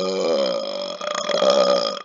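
A man's long, drawn-out deliberate burp, its pitch wavering, cutting off near the end.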